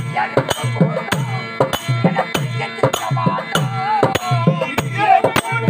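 Therukoothu accompaniment: a barrel drum beating a steady rhythm of about three strokes a second over a harmonium drone, with a wavering melody line over it near the middle.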